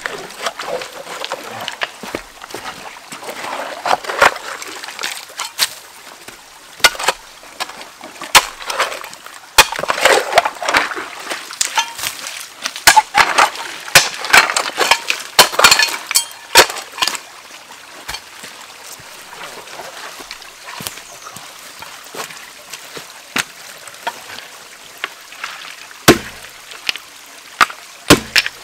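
Hand tools digging and cutting roots in a wet, stony streambed: many sharp knocks and scrapes on wood and stone, with splashing and sloshing water. The strokes come thickest in the middle and thin out to scattered knocks near the end.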